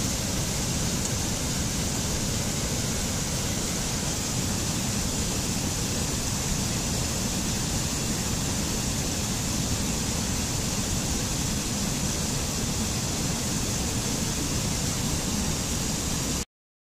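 Mountain stream rushing and cascading over rocks: a steady, even rush of water that cuts off suddenly near the end.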